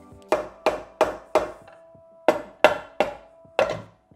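A mallet striking a Triumph 650's aluminium right-side crankcase half, eight blows in two quick groups of four, each with a short metallic ring. The blows work the case off the crankshaft's flywheel, which is clamped in a vise's soft jaws so the crankshaft itself is not hammered.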